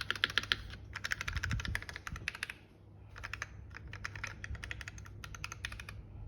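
Typing on a Squid60 (Bacca60) 60% mechanical keyboard with Gateron Ink v2 linear switches on a brass plate: fast runs of keystrokes, easing into lighter, sparser typing after a brief lull about two and a half seconds in, with a deeper thock from a large key around a second and a half in.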